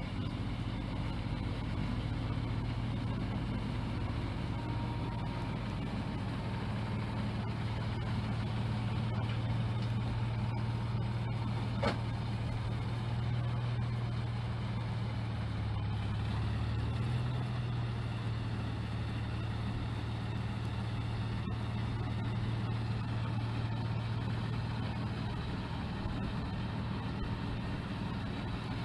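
Swather converted to a snowblower, its engine running steadily under load while the blower throws snow. A single sharp click comes near the middle.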